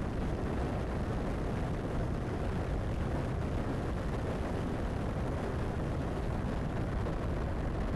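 Steady wind rumble on the microphone of a Bajaj Pulsar NS200 motorcycle riding at an even speed, mixed with engine and road noise.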